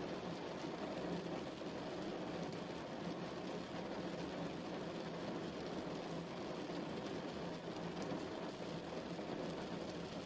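Steady rain, an even rushing noise that holds without a break.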